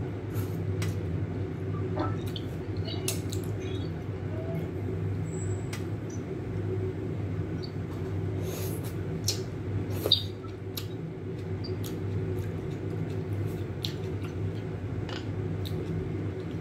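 Noodles being slurped and chewed, with scattered short clicks of metal chopsticks and spoon against a ceramic bowl, over a steady low hum.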